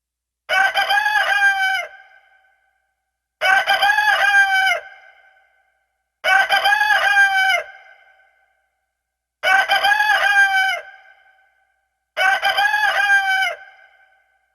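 Rooster crowing five times, about every three seconds. Each crow is the same, about a second and a half long, trailing off at the end.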